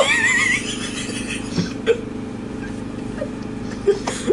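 Air conditioner humming steadily, with a short high wavering sound right at the start and a few brief voice sounds later on.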